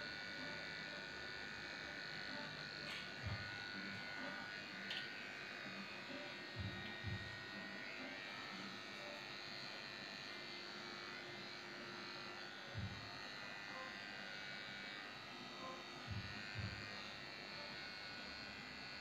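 Electric dog grooming clippers running steadily as they shave down a Shih Tzu's coat, with a few short, soft low thumps scattered through.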